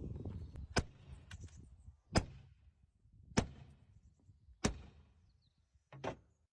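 Four sharp knocks, about a second and a quarter apart, over a low rumble that fades out in the first two seconds.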